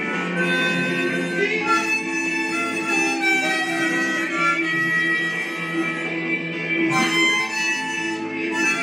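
Harmonica played continuously, cupped in both hands, moving through sustained notes and chords with several reeds sounding at once.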